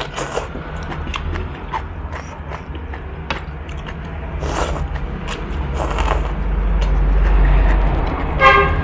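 Noodles being slurped and chewed, many small wet clicks and smacks. Under them, the low rumble of a passing vehicle swells about six seconds in and fades, and a short horn toot sounds near the end.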